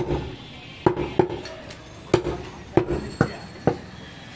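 Long butcher's knife chopping mutton on a round wooden chopping block: seven sharp chops at an uneven pace, each followed by a brief ring.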